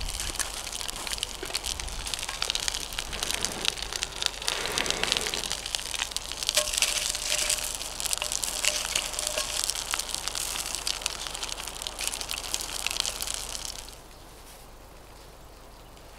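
Bacon-wrapped sausages sizzling and spitting in a cast iron skillet on campfire embers, with the fire crackling. It cuts off suddenly near the end, giving way to quiet woodland background.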